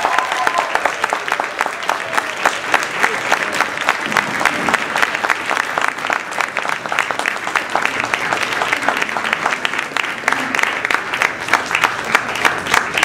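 Audience applauding: dense, steady clapping from many hands in a school auditorium.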